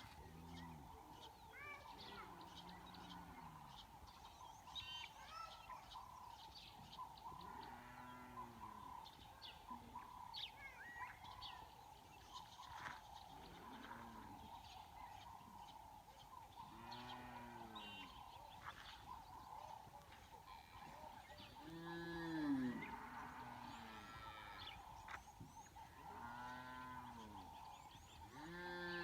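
Cattle lowing again and again, calls rising and falling in pitch and sometimes overlapping, the loudest about two thirds of the way in. Birds chirp over a steady faint hum.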